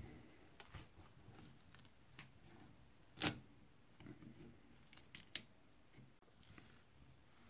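A flat metal blade prying at the old wooden handle on a rusty draw knife's tang: faint scraping with a few sharp clicks, the loudest about three seconds in.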